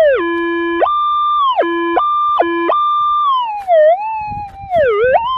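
Minelab GPX 4500 gold metal detector sounding a strong target signal over a buried nugget. The tone jumps back and forth between a low and a high pitch three times, then from about three seconds in it swoops down and back up with each pass of the coil.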